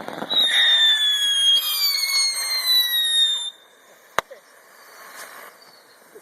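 Several fireworks whistling at once, their shrill tones slowly falling in pitch for about three seconds before cutting off together, then a single sharp firecracker bang about four seconds in.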